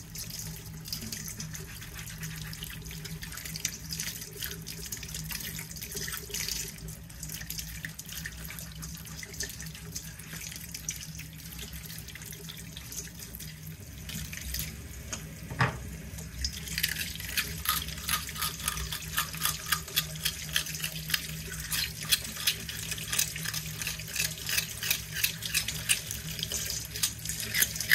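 Kitchen tap running into a steel colander of mussels and cockles in a stainless steel sink as the shells are rinsed. From about halfway through, a quick run of clicks and scrapes sets in as the shells are scrubbed and knock against the colander.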